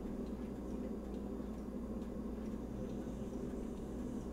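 Room tone: a steady low electrical hum, with a few faint ticks scattered through it.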